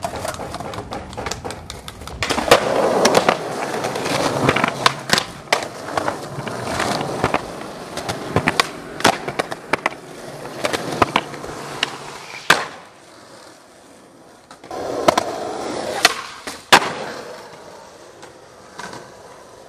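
Skateboard wheels rolling over pavement, with many sharp clacks of the board striking the ground. A loud crack comes just past the middle, after which the rolling dies away. Another short roll follows near the end, ending in a loud clack.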